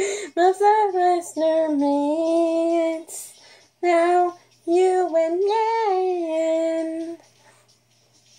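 A woman singing a song's melody unaccompanied, with meow sounds in place of the lyrics, in two phrases of long held notes with small slides between them. The singing stops about a second before the end.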